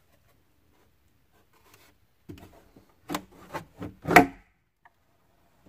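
Lower glove box being swung back up into the dashboard: a short run of plastic scrapes and knocks over about two seconds, the loudest as it pushes home about four seconds in.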